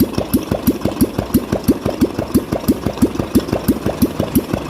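Royal Enfield Classic 350's single-cylinder engine idling just after a top-end rebuild with new rockers and refitted hydraulic tappets. It runs with an even beat of about seven pulses a second.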